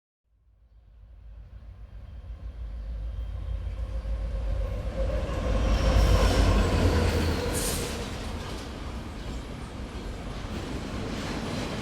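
Train rumbling as it approaches, fading in from silence and building to its loudest about six seconds in. There is a brief high-pitched squeal or hiss near eight seconds, then a steady rumble as it runs on.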